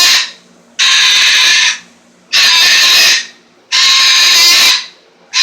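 Pet parrot screaming: a run of loud, harsh calls about a second long, one every second and a half or so, four in all, the last starting near the end.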